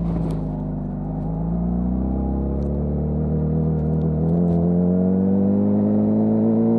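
Honda CBR600RR inline-four engine with its stock exhaust, running under way. Its pitch dips a little, then climbs smoothly and steadily from about two seconds in as the bike gently accelerates.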